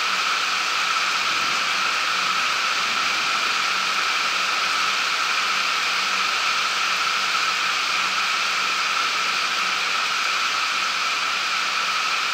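Rain pouring down in a steady, even hiss that does not let up.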